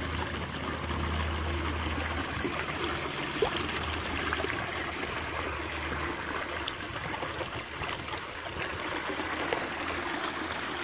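Water rushing steadily down a small sluice box over its riffle mat, washing sand and tungsten shavings through. A low hum underneath weakens about two seconds in, and there is a single faint click a little after three seconds.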